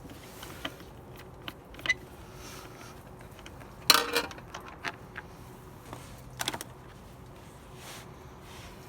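Scattered clicks and light metallic clinks as the generator's carburetor parts and tools are handled for cleaning. The sharpest clack comes about four seconds in, with a quick cluster of clicks a little over six seconds in.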